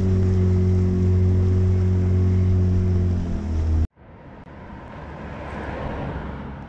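A boat's engine running steadily at an even speed, cut off abruptly about four seconds in; a quieter rushing noise follows, swelling briefly and then fading.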